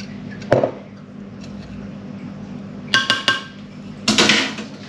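Metal spoon and glass measuring jug clinking: a single dull knock about half a second in, then several quick ringing clinks around three seconds in, followed by a short scraping rustle near the end.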